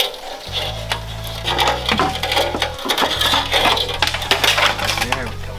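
Repeated sharp metal clanks and knocks from work on a rusty car body, over background music with a bass line.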